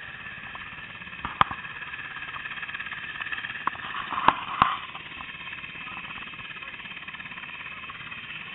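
UH-60 Black Hawk helicopter running on the ground with its rotor turning: a steady whine from its twin turboshaft engines. A few sharp clicks cut through, the loudest about a second and a half in and again around four and a half seconds in.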